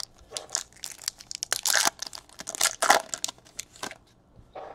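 Baseball card pack wrapper being torn open and crumpled by hand: a quick run of crinkling, crackling rustles that thins out near the end.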